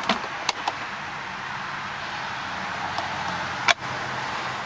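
Plastic glove box latch and lid of a 1999 Volvo S70 being worked by hand: a few sharp clicks, three in the first second and two more later, the last and loudest near the end. A steady low hum runs underneath.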